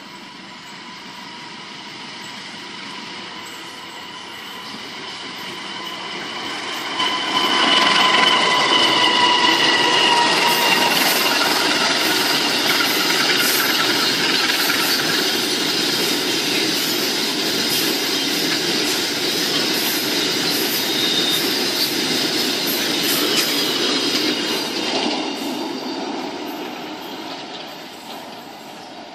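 Long-hood diesel locomotive hauling a freight train past at close range: engine and wagons running over the rails with rapid clicking of wheels on rail joints. It builds as the train approaches, rises sharply about seven seconds in, and fades near the end. A steady high-pitched whine runs under it and is strongest for a few seconds after the rise.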